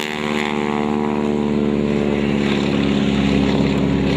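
Stearman biplane's radial engine and propeller droning steadily in flight, growing a little louder toward the end.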